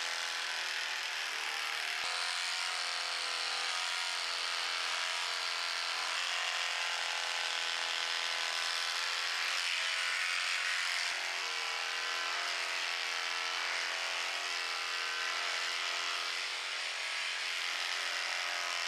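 Corded electric horse clippers running with a steady hum as they are worked across a horse's back, cutting the coat.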